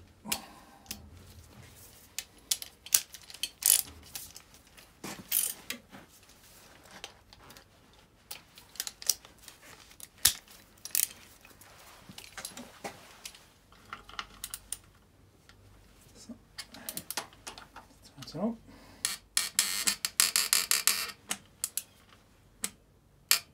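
Scattered metallic clicks and clinks of hand tools, then about 19 seconds in a quick run of ratchet clicking as a ratchet wrench turns a bolt on the Mitsubishi 4D56 engine's timing belt tensioner.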